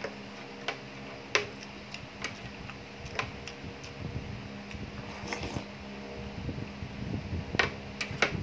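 Metal spoon and fork clinking and scraping against a ceramic plate while eating: sharp clicks every second or so, with a gap in the middle, over a steady low hum.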